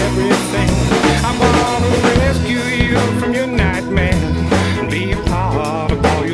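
Rock song with a drum kit keeping a steady beat and a lead line that wavers in pitch.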